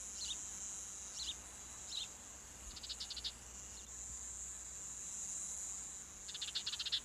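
Insects chirping in a field chorus: a steady high-pitched trill, with short chirps about once a second over the first two seconds and two quick runs of rapid pulses, one about three seconds in and one near the end.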